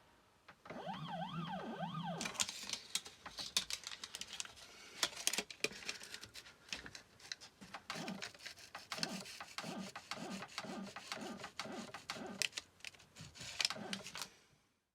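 CNC 3018 Pro router: first its stepper motors whine, rising and falling in pitch as the axes move, then about two seconds in the end mill starts cutting aluminium plate with a dense run of sharp clicks and chatter that pulses about twice a second in the later part. The sound cuts off abruptly just before the end.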